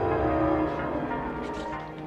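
Suspenseful film score music: sustained, layered tones that swell in the first half-second and then ease off.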